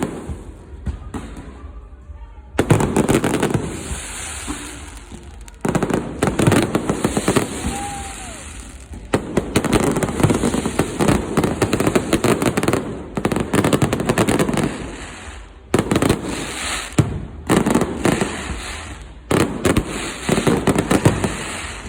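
Fireworks display going off in repeated volleys: each starts suddenly with loud bangs and runs into a dense crackle that fades before the next volley.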